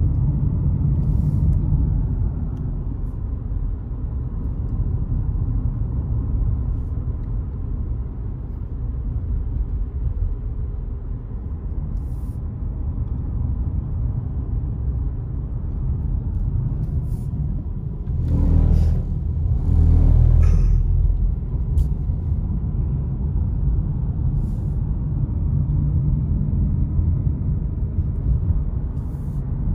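Steady low road and tyre rumble heard inside a moving car's cabin. Two brief louder rushes come about two-thirds of the way through.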